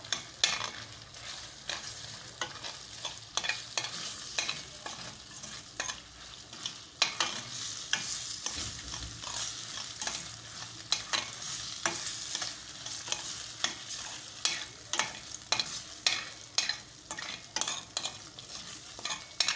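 Spatula scraping and knocking against a stainless steel frying pan as chicken pieces are stirred, in many irregular strokes, over a steady sizzle of the chicken frying in soy sauce.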